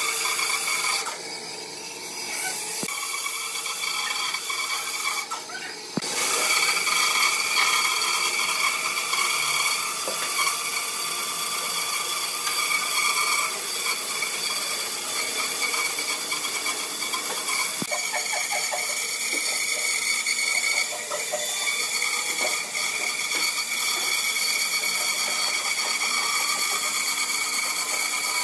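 Bandsaw running and cutting a curve through a thick block of glued-up wooden slats: a steady machine whine with the rasp of the blade in the wood. The sound drops away briefly twice near the start.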